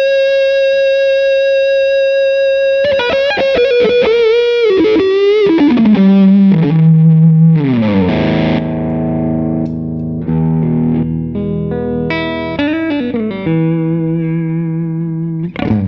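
Electric guitar played through two overdrive pedals stacked, giving a thick distorted tone: a long held note, then wavering bent notes falling into lower sustained notes and chords, stopping just before the end.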